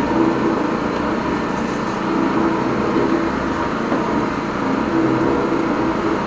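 High-pressure drain jetter running at a steady drone with water hissing, as the jetting hose clears a blocked rainwater downpipe.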